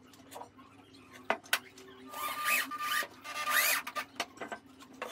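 Corded electric drill run in two short bursts into wood through a steel angle bracket, its motor whine rising as it spins up each time, after a couple of sharp clicks of handling.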